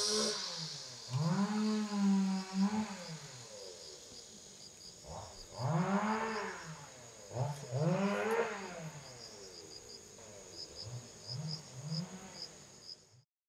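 Repeated drawn-out animal calls, each about a second long and rising then falling in pitch, some coming in quick pairs, over faint regular insect chirping. The sound cuts off suddenly near the end.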